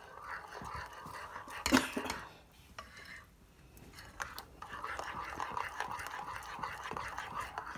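A metal spoon stirring freshly thinned, watery batter in a glass bowl, with wet sloshing and scraping and small clinks against the glass. There is one louder knock a little under two seconds in.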